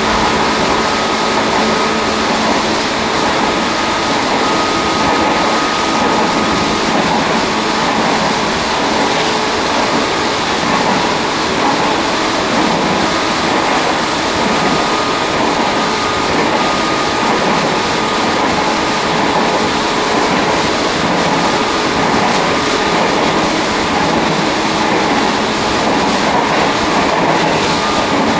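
Tobu 1800 series electric train running at speed, heard from the vestibule deck of a motor car: a steady, loud rumble of wheels on rail mixed with traction-motor noise, with a faint steady whine in it.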